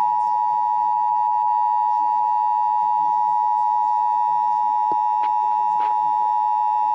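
Emergency Alert System two-tone attention signal (853 and 960 Hz together) broadcast over radio: a steady, unbroken, loud tone that announces an emergency alert, here a severe thunderstorm warning.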